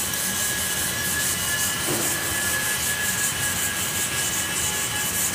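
Hand sanding of cured body filler on a car panel with a sanding block and 360-grit sandpaper: a steady, even rasping hiss of the paper stroked over the panel. This finer grit removes the scratch lines left by the coarser paper, so they will not show through the epoxy primer.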